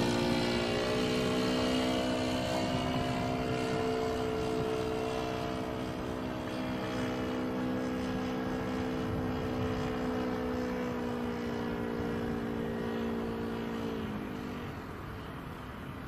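Saito glow engine of a Ben Buckle Super Buccaneer model plane running at low throttle overhead, a steady even note that slowly grows fainter. Near the end its pitch drops slightly and it fades out as the plane flies away.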